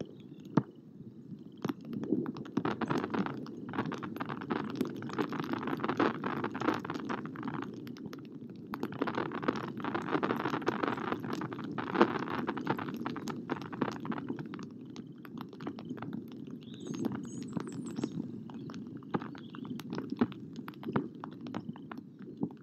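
Bald eaglet, nearly eight weeks old, wing-exercising on its stick nest: repeated whooshing wing beats with rustling of feathers and nest sticks, in two long spells about two and nine seconds in, then lighter flapping. A steady low rumble and scattered sharp ticks run underneath.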